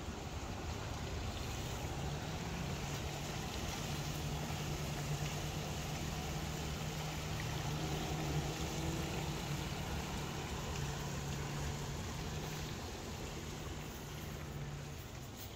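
A motorboat engine running with a steady hum, over a constant rush of wind and water. It eases off slightly near the end.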